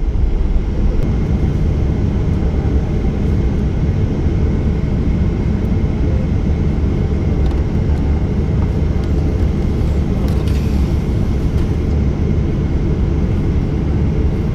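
Boeing 737-800's CFM56 turbofan engines running at taxi power, heard inside the cabin over the wing: a steady low rumble with a thin steady whine, as the airliner rolls onto the runway and lines up.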